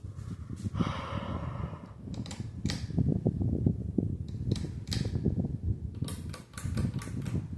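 52-inch Casablanca Four Seasons ceiling fan running with a low, uneven rumble, with clusters of sharp clicks a couple of seconds in, in the middle and near the end.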